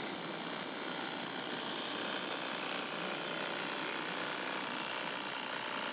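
Cordless electric fillet knife running steadily, its blade cutting down along the backbone of a speckled trout.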